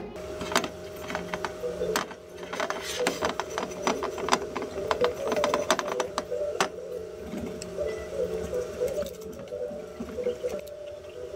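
Plastic syrup bottles being handled and wiped down with a damp cloth: a run of light clicks, knocks and rubbing, busiest in the middle, over a steady hum.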